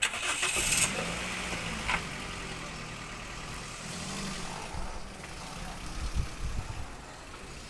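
2008 Toyota Vios engine running at a steady idle. It comes in abruptly, loudest in the first second, with a sharp click about two seconds in and a few low thuds around six seconds.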